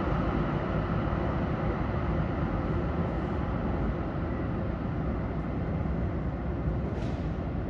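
Link light rail train running in the tunnel: a steady low rumble.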